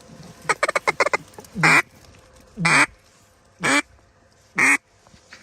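Duck quacking: a quick run of short quacks, then four long, loud quacks about a second apart.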